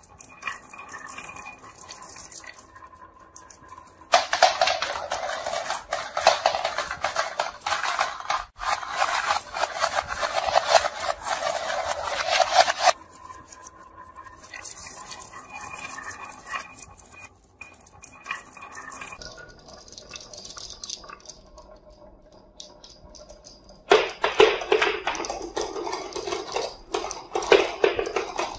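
Glass marbles rolling down a wooden wavy marble-run track, clicking and clattering against each other and the wood. The clatter is dense and loud from about 4 to 13 seconds in and again from about 24 seconds, with sparser, quieter clicking between. In the last seconds the marbles run through a plastic chute into the bed of a plastic toy dump truck.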